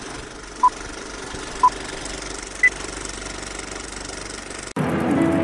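Countdown leader beeps over a steady noise: two short beeps a second apart, then a higher-pitched final beep a second later. Near the end the noise cuts off and music begins.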